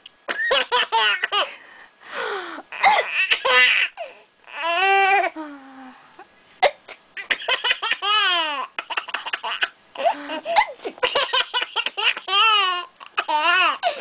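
A 10-month-old baby laughing hard in repeated bursts of belly laughs and giggles, with a few longer laughs that fall in pitch.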